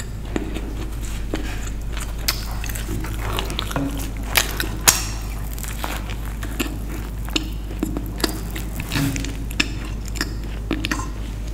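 Close-miked eating of a burger: a bite into the soft bun and patty, then chewing with many small, irregular wet mouth clicks and smacks over a steady low hum.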